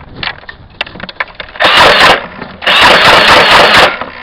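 Motorized Nerf blaster firing two loud bursts, a short one about a second and a half in and a longer one of about a second soon after.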